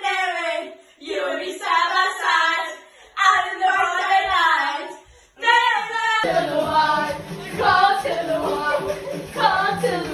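Music: a song with a female singing voice, sung in short phrases with brief pauses. About six seconds in, a fuller backing with a steady low bass comes in under the voice.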